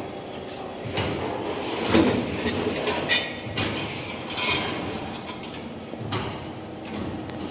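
A long steel band saw blade being handled and fed onto a blade-sharpening machine's frame: irregular metal knocks, scraping and rattling. There is a heavier knock about two seconds in and scraping clatters around the middle.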